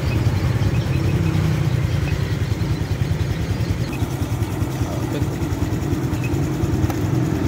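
Honda Future 125's single-cylinder four-stroke engine idling steadily, with an even, rapid low pulse and no revving.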